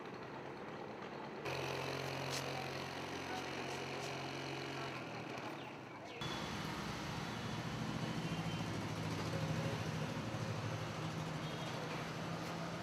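Street traffic noise with a motor vehicle engine running steadily at a low hum; the sound changes abruptly twice, to a louder engine hum about a second and a half in and to a different, slightly higher hum about six seconds in.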